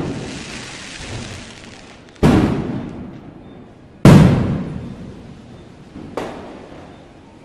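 Fireworks shells bursting: three sharp bangs about two, four and six seconds in, the middle one loudest and the last smallest, each fading away over a second or more. A high crackling hiss from a burst just before dies away over the first two seconds.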